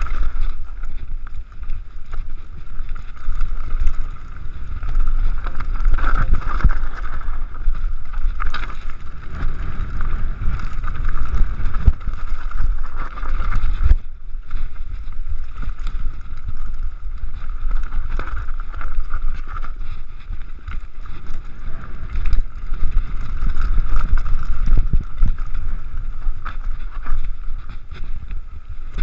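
Mountain bike rolling fast down a rocky trail, its frame and parts rattling with many small knocks over stones, under heavy wind buffeting on the action camera's microphone. A steady high buzz runs along with it and briefly drops out about halfway through.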